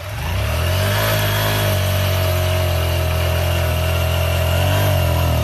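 Small motorcycle engine running steadily with its exhaust piped through a hose into the rear tyre to inflate it. The engine speed rises slightly twice.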